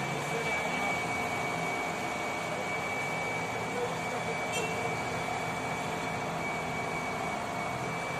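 Hydraulic excavator's diesel engine running steadily as the machine works its way down off a flatbed truck, with a thin steady high whine over the drone.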